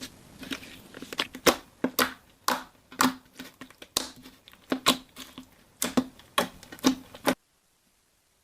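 Crunchy slime being squeezed and pressed by hand, giving a run of sharp crackling snaps, about two a second. The sound cuts off suddenly near the end.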